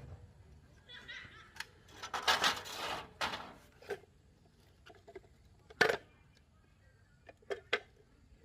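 Scattered sharp clicks and knocks, with a short noisy rush about two seconds in and a louder single click near the middle.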